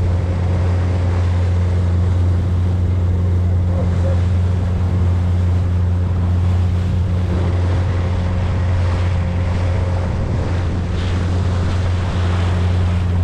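Outboard motor running steadily as the boat moves at speed, a constant low drone, with the rush of the wake and wind buffeting the microphone.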